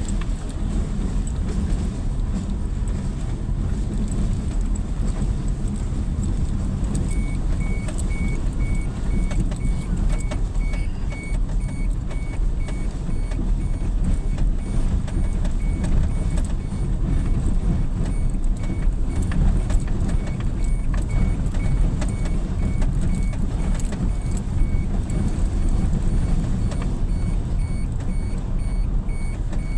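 Vehicle running on a rough farm track, heard from inside: steady low engine and road rumble with small rattles and knocks. A faint repeating high beep joins from about seven seconds in.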